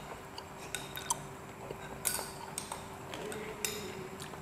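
Quiet tableware and eating sounds: spoons and a fork clicking and scraping against a cup, a glass and a plate, with soft wet eating noises. A faint steady hum runs underneath.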